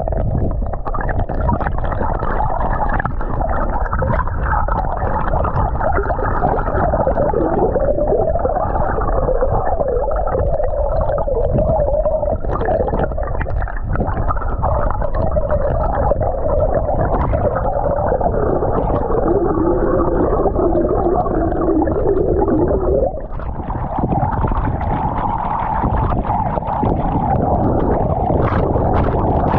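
Turbulent water churning below a small waterfall, heard through a GoPro held underwater: a steady, muffled rumble and gurgle of bubbles with wavering hums. The sound dips briefly and turns a little brighter about three-quarters of the way through.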